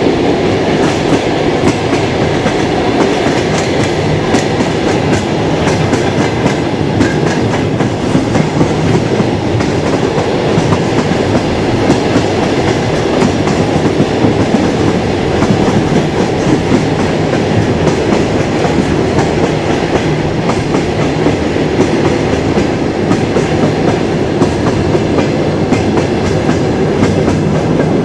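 Passenger train running at speed, its wheels clattering over the rail joints above a steady rolling rumble, heard from inside the carriage.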